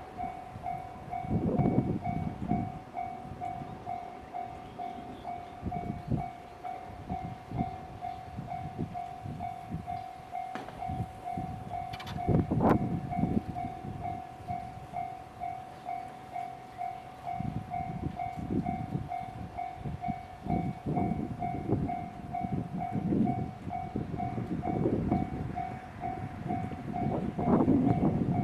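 A Japanese railway level-crossing warning bell rings in an even, unbroken repeat throughout. Under it a train rumbles and clatters over the crossing, the wheel noise heaviest in the second half.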